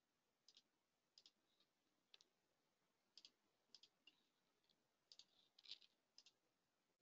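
Near silence broken by about a dozen faint, irregular clicks, some in quick pairs, from a computer being worked.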